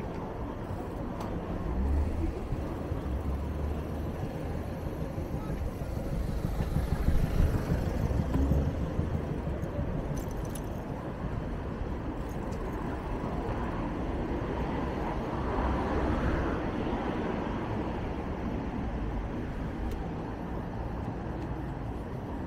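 City street traffic: a steady rumble of cars, swelling as vehicles pass a few times.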